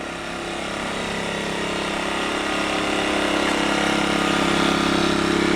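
Earthquake IG800W 800-watt inverter generator's small engine running steadily at low speed with its economy mode on, a smooth even hum that grows steadily louder.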